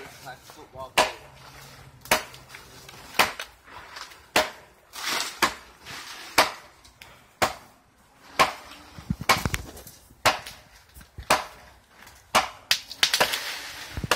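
Machete hacking into a tree, about a dozen sharp chopping strikes at roughly one per second.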